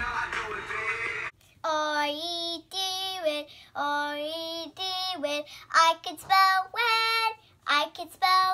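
Recorded music plays briefly and cuts off about a second in. Then a young girl sings unaccompanied, in phrases of long held notes with short silent gaps between them.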